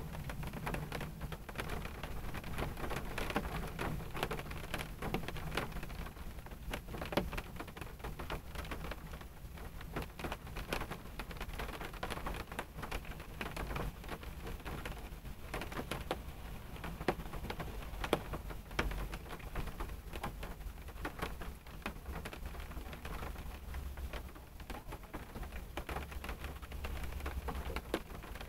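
Rain falling on a car, heard from inside the cabin: dense, irregular taps of drops over a steady low rumble.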